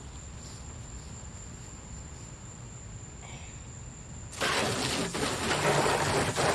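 A garden hose spray switches on about four seconds in: a sudden, loud, steady hiss of water splashing onto a truck tool box, rinsing off degreaser. Before it there is only a faint steady high whine over low rumble.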